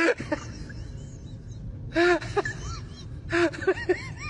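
Small dog yapping: short, high, arching barks in two clusters, about two seconds in and again around three and a half seconds in, over a steady low background rumble.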